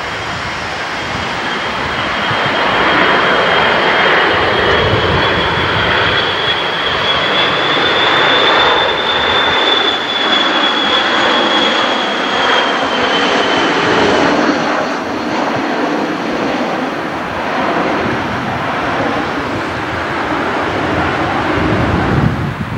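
Jet aircraft passing low overhead, its engines giving a broad rush with a high whine that drifts slightly upward, then drops and fades out a little past halfway through.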